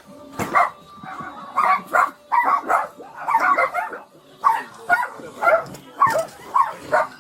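Many dogs barking and yelping at once, a dense overlapping chorus of short barks from a large pack packed into one house.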